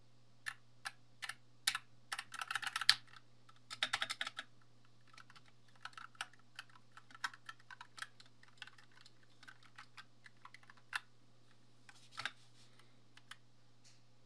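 Keys of a Glorious GMMK 2 mechanical keyboard being pressed: a few single clacks, then two quick flurries of fast typing, then scattered keystrokes with a short burst near the end.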